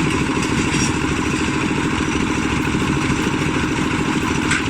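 Cement mixer's engine running steadily, with a rapid, even clatter.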